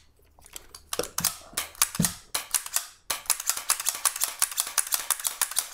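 Rapid light metallic clicking from handling the pump handle and bolt of a Sheridan-based pump paintball pistol. A few uneven clicks come first, then after a short pause a fast steady run of about nine clicks a second.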